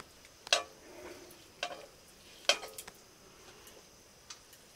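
Metal utensils clinking against metal cookware: a handful of separate sharp clinks with brief ringing, the loudest about half a second in and about halfway through.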